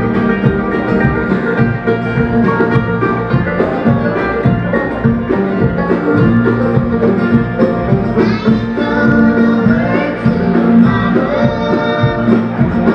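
Live bluegrass band playing an up-tempo tune, with banjo, acoustic and electric guitars and upright bass.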